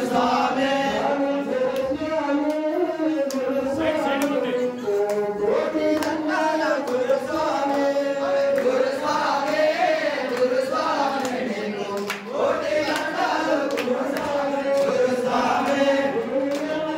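Hindu devotional singing: a chanted melody moving through long, held notes with music behind it, running on without a break.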